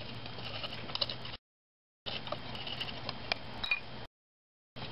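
Coarse brush scrubbing a small metal train wheel in a shallow plastic dish of solvent to clear solder flux residue: faint, irregular ticks and clicks over a low hiss. The sound cuts to dead silence twice, for about half a second each time.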